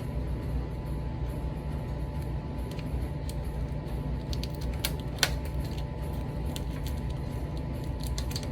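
Steady low hum of running machinery, likely the commercial gas dryers, with a faint steady tone over it. Scattered light clicks and taps come from the metal dryer duct and foil tape being handled, with one sharper click about five seconds in.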